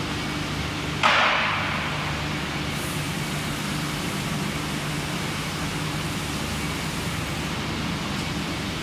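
Machinery of an automatic concrete roof-tile painting line running: a steady low hum under an even noise. About a second in there is one short loud hiss that fades within half a second.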